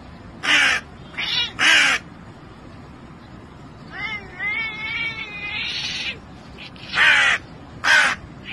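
Hooded crow cawing: three harsh caws in the first two seconds and two more near the end. About four seconds in, an orange tabby cat answers with a wavering, warbling call lasting over a second.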